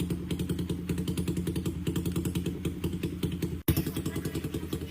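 Suzuki Raider Fi motorcycle's single-cylinder engine running with a fast, even exhaust beat. The sound breaks off for an instant about three and a half seconds in, then carries on as before.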